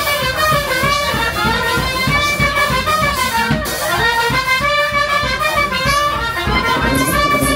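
Brass band playing an instrumental tune, with a melody of held brass notes over a steady beat.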